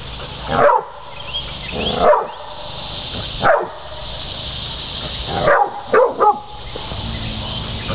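Catahoula cur dogs barking at penned hogs, baying them. The barks come singly every second or two, then three in quick succession near the end.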